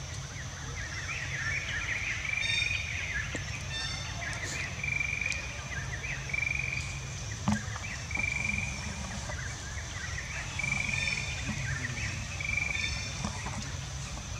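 Outdoor ambience: short high calls repeating every second or so, over a steady high-pitched whine and a low hum, with one sharp click about halfway through.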